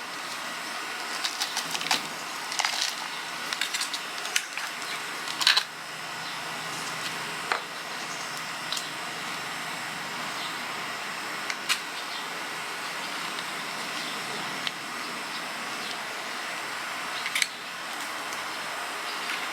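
Hands repotting plants: scattered light clicks and rustles of pots and potting mix, busiest in the first few seconds and then only now and then, over a steady outdoor hiss.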